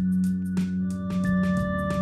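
Background music: held organ-like chords over a quick, steady ticking beat, with a higher note joining about a second in.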